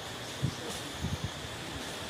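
Outdoor ambience: a steady hiss with a faint, thin high tone running through it, and a few soft low thumps, one about half a second in and a small cluster around a second in.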